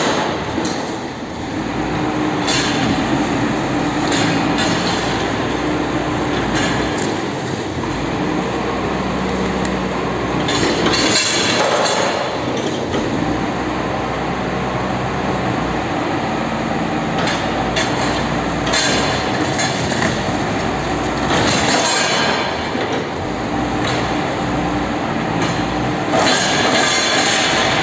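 Heavy machinery running steadily and loudly, with a few louder, harsher surges, typical of a machine breaking up a refrigerator for disposal.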